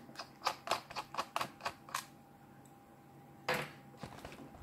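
Quick light clicks, about five a second, from a small screwdriver working a screw out of an HP Pavilion 15 laptop's plastic underside. They stop about two seconds in, and near the end comes a short scrape as the laptop is turned over.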